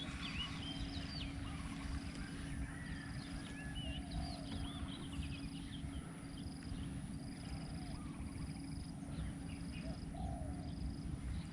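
Birds chirping and calling over low outdoor rumble. One high short note repeats evenly, a little faster than once a second, and a faint steady hum runs underneath.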